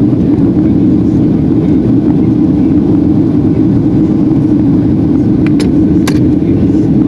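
Steady roar of a Boeing 737-800's CFM56 turbofan engines and rushing air, heard inside the cabin by the wing during the climb after takeoff. A few faint clicks come about five and a half to six seconds in.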